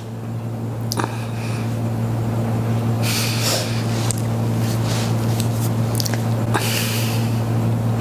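A person sniffing and breathing out heavily, a few seconds apart, over a steady low hum.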